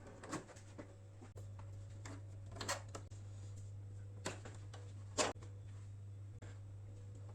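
A handful of short, sharp clicks and knocks from objects being handled, the loudest about five seconds in, over a steady low hum.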